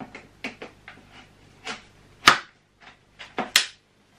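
Plastic and metal parts of an Aircraft Powerglide floor cleaner's pole clicking and knocking as the sections are fitted together: a run of light clicks, then two louder snaps a little past halfway and near the end.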